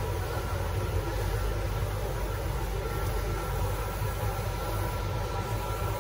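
Fedar FD61915A wide-format dye-sublimation textile printer running, with a steady machine hum and whir from its mechanism and cooling fans and a faint high whine.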